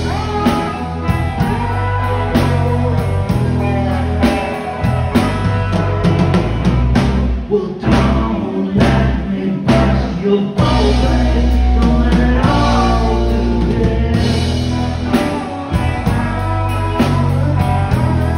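Live rock band playing: drum kit, electric guitars and bass guitar together, with a steady beat of drum hits under a strong bass line.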